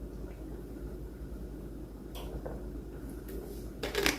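Quiet room tone with a steady low hum and faint handling noises, with a few short clicks or knocks near the end.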